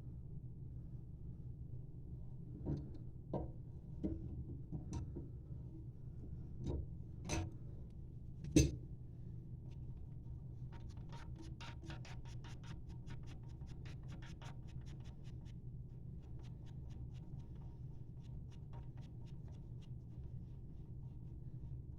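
Scattered clicks and knocks from hands working on toilet fill-valve parts, then two long runs of quick, even ticks at about six a second, like a nut being turned on a ratchet, over a steady low hum.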